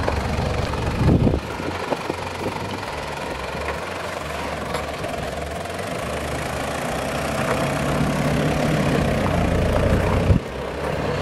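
Toyota Land Cruiser Prado 90's engine running at low revs as the 4x4 crawls over a dirt trail, slowly getting louder, with a brief louder bump about a second in.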